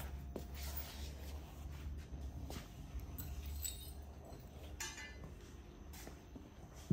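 Faint clinks and light knocks of small metal parts being handled, over a low steady hum that stops a little past halfway.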